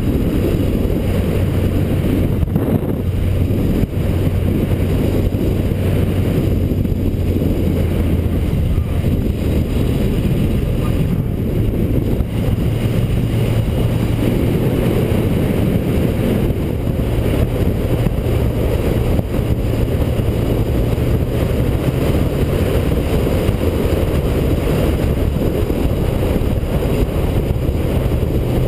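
A motorcycle at road speed, heard from on board: wind rushing over the microphone over the steady drone of the engine, which settles at a slightly higher pitch about halfway through.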